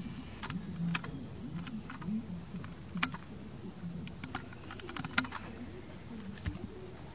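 Irregular sharp clicks and taps, a dozen or so scattered unevenly, the loudest about three and five seconds in, over a faint low murmur in the background.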